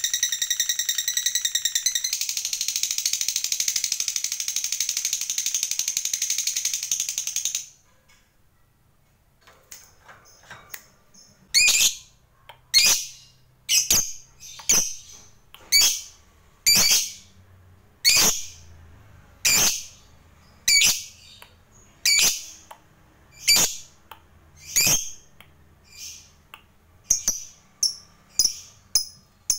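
Fischer's lovebird giving a long unbroken chatter (the 'ngekek panjang' prized by lovebird keepers), which cuts off suddenly about seven and a half seconds in. After a short quiet spell it gives sharp single chirps about once a second, coming faster near the end.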